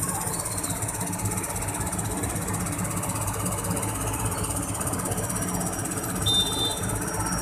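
An engine running steadily at a constant pace, with a brief high-pitched beep about six seconds in.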